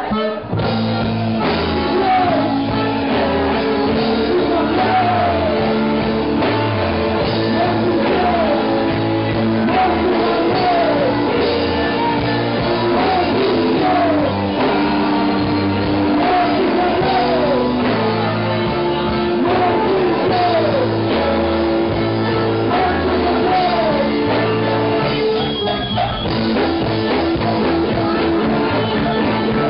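Live psychobilly-punk band playing loud rock music with singing, over a repeating bass riff with recurring sliding high notes. There is a brief break near the end before the riff comes back in.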